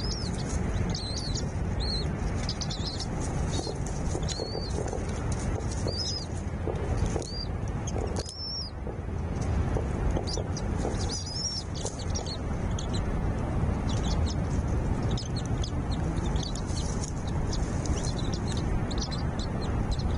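Small birds chirping: short, high, arched chirps about every second or two, turning into a quicker run of brief chirps in the second half, over a steady low rumble.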